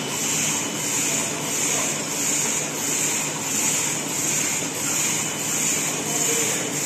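Automatic napkin and cutlery packing machine running: a steady mechanical hum with a high hiss that swells and fades about one and a half times a second with the machine's cycle.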